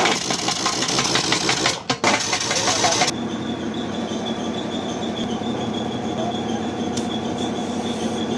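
Machine noise: a loud harsh grinding rush for about three seconds, briefly dipping near two seconds in, then a sudden change to a steadier engine-like running with a high thin whine over a low hum.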